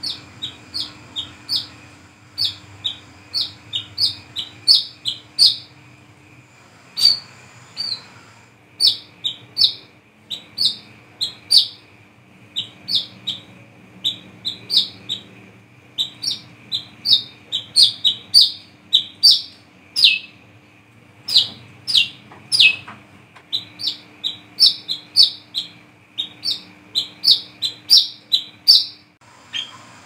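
Brown-throated sunbird (kolibri kelapa, wiceh) calling in a long run of short, sharp, high chirps, about two a second, with a brief break about six seconds in.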